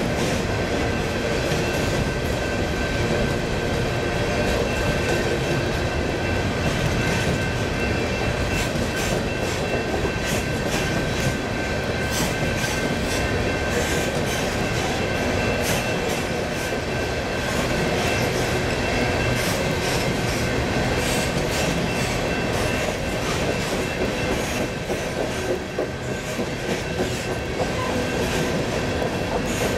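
A freight train's cars rolling steadily past, with wheel clicks over the rail joints and a faint steady high ring from the wheels.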